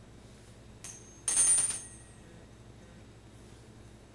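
Small metal bell on a pet cockatiel's toy being rung by the bird: a single light ding about a second in, then a quick run of rapid rings lasting about half a second.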